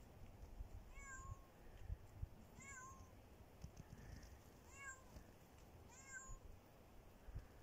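A kitten meowing: four short, high-pitched meows, each rising and falling in pitch, about every one and a half seconds.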